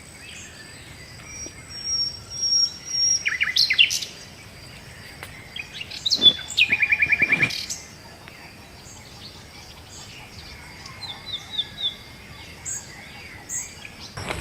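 Wild birds singing and calling in woodland: several separate phrases, among them a quick sweep followed by a fast, even trill about halfway through, and softer chirps near the end.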